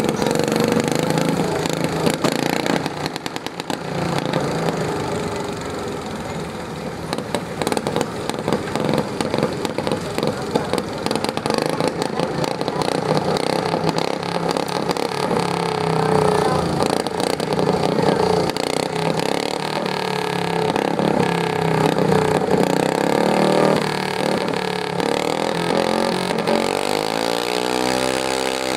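Garden tractor engine running hard, its pitch wavering up and down as it revs.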